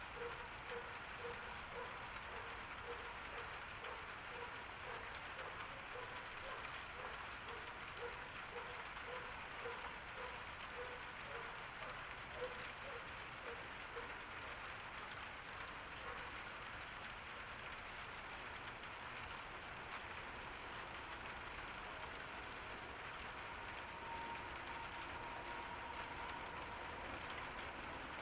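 Steady summer rain falling on a garden, an even hiss of many drops. Through the first half a faint short note repeats about twice a second.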